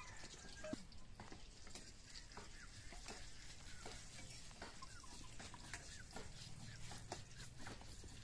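Faint steady sizzling and crackling of food frying in a pan, with light scattered ticks.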